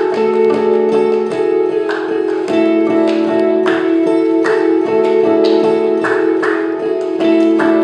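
Live instrumental jazz on two acoustic guitars: plucked notes with sharp attacks ring out over steady, sustained held tones.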